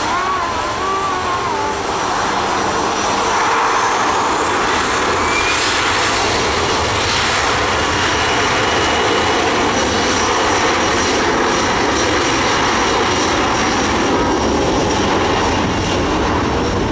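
Jet engines of a Boeing 737-500 running on the runway, steady and loud, with a high whine that rises in pitch about four seconds in and then holds.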